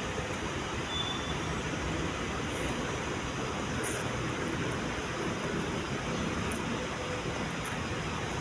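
Steady city traffic noise: an even wash of road sound with no single vehicle standing out.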